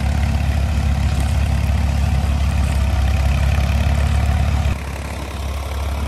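Vintage Fordson Dexta tractor's diesel engine running steadily under heavy load as it labours to pull a small two-furrow plough through wet, sticky soil. The sound drops noticeably in level near the end.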